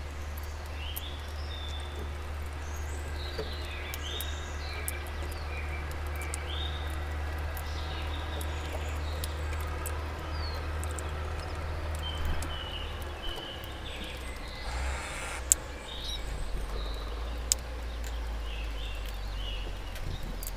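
Small birds giving short chirping calls at a seed feeder, with scattered sharp clicks of sunflower seeds being cracked, over a steady low outdoor rumble. A brief rush of noise passes about three-quarters of the way through.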